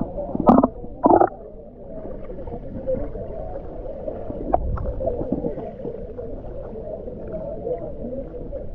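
Muffled underwater sound from a camera held below the surface of a spring-fed pool: water moving and gurgling, with two short loud bursts about half a second and a second in.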